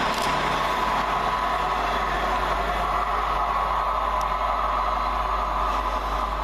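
Two coupled Class 158 diesel multiple units running through the station: a steady diesel engine and wheel noise with a low rumble and a steady whine.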